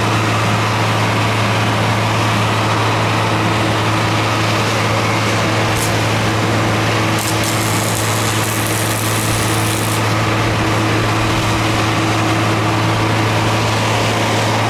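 Stick welding with a thin 6013 rod: a brief arc strike about six seconds in, then the arc crackling for about three seconds. A loud steady engine hum runs underneath throughout.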